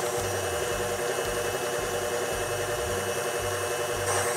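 KitchenAid stand mixer running steadily at low to medium speed, its motor humming, beating egg and flavourings into creamed butter and sugar, with a low regular pulse underneath.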